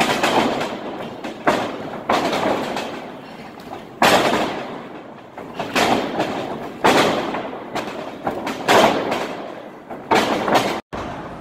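Wrestlers taking bumps onto a wrestling ring's canvas-covered mat: a series of loud slams, roughly one every one to two seconds, each echoing in a large hall.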